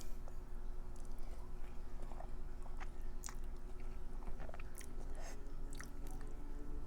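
Close-miked chewing of a mouthful of creamy uni (sea urchin) cream pasta: soft, wet mouth sounds with scattered small smacks and clicks.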